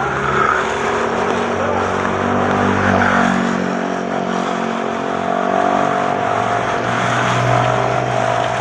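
Motor traffic close by: a vehicle engine running steadily with a hum that shifts slowly in pitch, over a broad hiss of road noise.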